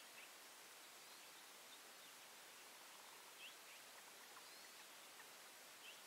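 Faint, short, high bird call notes, a handful at irregular intervals, over a steady faint hiss of near-silent open air.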